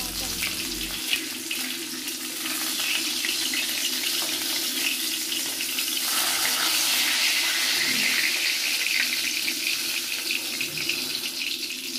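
Hilsa fish tails sizzling steadily in hot mustard oil in a wok, a continuous hiss with small crackles and pops of spitting oil.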